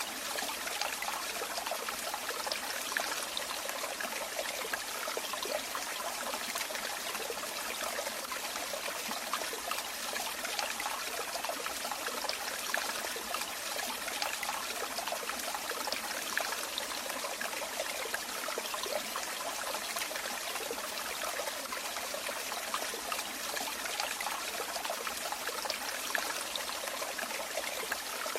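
Running water trickling and splashing steadily, a continuous babble of small droplets with no low rumble.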